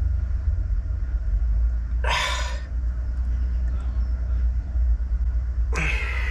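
A steady low rumble throughout, with two short breathy exhalations of effort, about two seconds in and again near the end, as a man strains a wrench against a seized brake caliper bolt.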